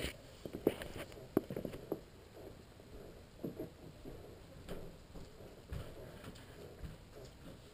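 A dog lapping water from a toilet bowl: irregular laps and small splashes, closer together in the first two seconds and sparser after.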